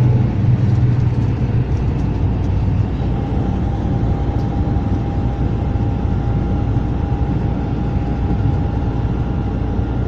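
Steady low rumble of engine and road noise heard from inside a moving vehicle on a highway. A faint steady whine joins it about three seconds in.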